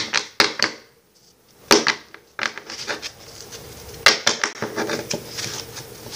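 Trading cards being handled and flipped through: a string of light clicks and rustles, with a brief quiet spell about a second in.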